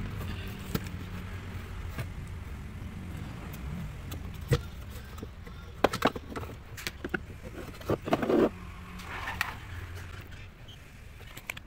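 Scattered knocks and clicks of hands working on the drive belt and pulleys of a twin-tub washing machine, clustering in the second half, over a steady low hum.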